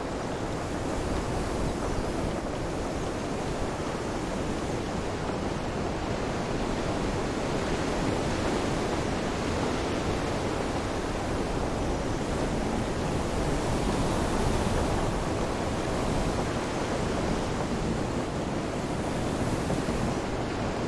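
Steady storm ambience of rain and wind, an even rushing wash with no distinct single events.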